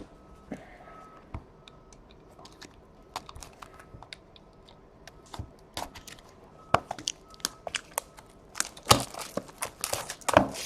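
Sealed hockey card box being worked open by hand: scattered clicks, scrapes and tearing of cardboard and plastic wrap, busiest and loudest near the end.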